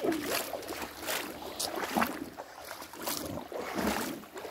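Feet wading through shallow creek water over gravel, with a slosh and splash at each stride, about one step a second.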